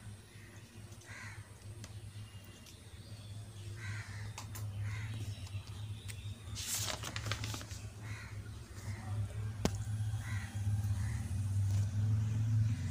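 A bird calling repeatedly, short calls at uneven intervals, over a steady low hum. Paper rustles as diary pages are turned about seven seconds in.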